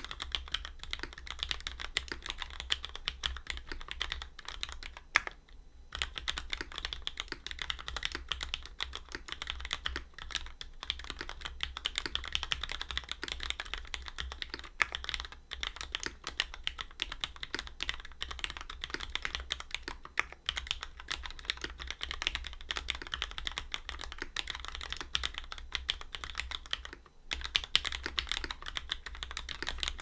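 Steady, fast typing on a BAEBAE tenkeyless custom mechanical keyboard with lubed Cherry MX Nixie switches, an aluminium plate and GMK doubleshot keycaps: a dense run of keystroke clacks, with a brief pause about five seconds in and another near the end.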